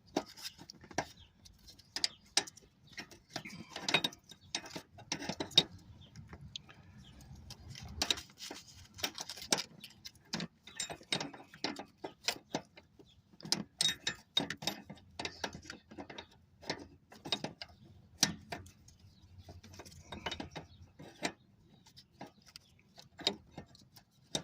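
Stubby 18 mm wrench clicking and clinking against metal in irregular knocks and clicks as it turns a power steering line fitting out a little at a time; the fitting is nearly free.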